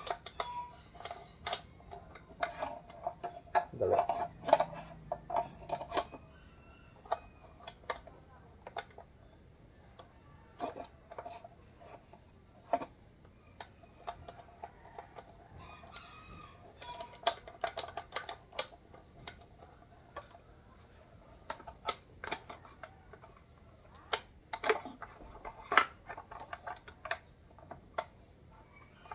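Clicks, taps and small scrapes of an AR-7 rifle's receiver and plastic buttstock being handled as the receiver is screwed into the stock. A rooster crows in the background twice, about 3 seconds in and again around 17 seconds.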